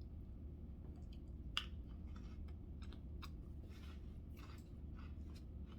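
Light, scattered crunches and clicks from Ritz crackers, a few short crackles spaced irregularly, over a faint steady low hum.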